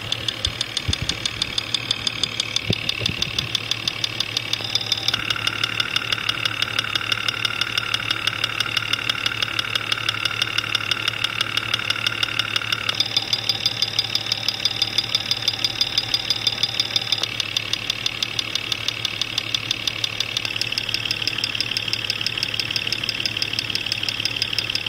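Jeep Cherokee XJ's 4.0L inline-six engine running with a steady, even knock about three times a second, heard through a Steelman Chassis Ear electronic stethoscope: the intermittent engine knock being traced. The tone of the sound changes abruptly about 5, 13 and 20 seconds in as different pickup points come through.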